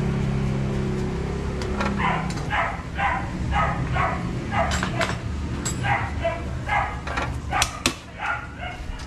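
A dog barking over and over, about two barks a second, starting about two seconds in. Underneath is the low, steady running of a Honda XR200 motorcycle's single-cylinder engine.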